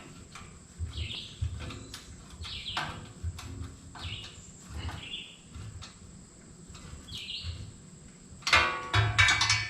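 A bird chirps again and again, over scattered clicks and knocks of hand-tool work on metal. Near the end comes a loud burst of rapid metallic clattering.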